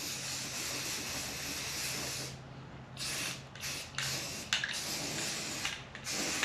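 Aerosol can of rust-preventive spray paint hissing: one long spray lasting about two seconds, then a series of short bursts.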